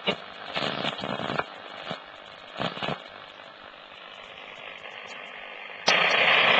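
Grundig Yacht Boy 1100 portable radio being tuned between stations: short bursts of station audio and crackle give way to steady hiss. A strong station comes in loudly near the end.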